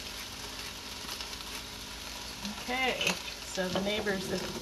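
Leeks, potatoes and cauliflower sizzling steadily in a pot on the stove, with a few words spoken over it in the second half.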